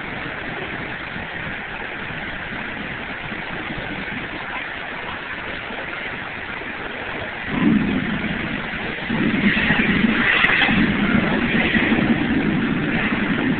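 Man-made volcano attraction's waterfall rushing steadily. About halfway through, a deep rumbling starts and grows louder as the eruption's fire effects flare up.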